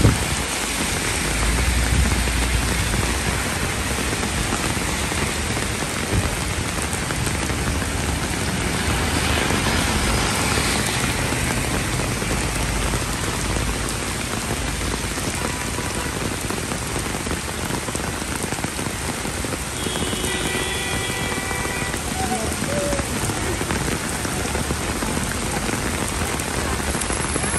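Heavy rain pouring onto pavement and road, a steady dense hiss of drops splashing on wet ground.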